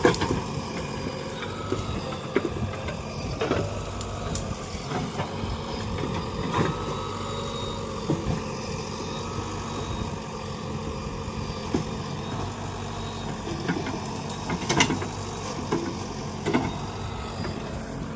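JCB 3DX backhoe loader's diesel engine running steadily, with occasional sharp knocks and clanks scattered through it.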